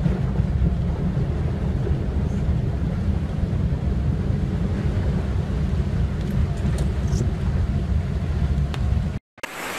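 Steady low rumble inside a vehicle's cabin as it drives through shallow flood water. It cuts off suddenly just after nine seconds and gives way to a hissing rush of water.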